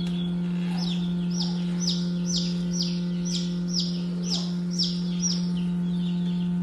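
Newly hatched chicks peeping inside an egg incubator: a run of high, falling peeps, about two a second, from about a second in. Underneath is the steady low hum of the running incubator.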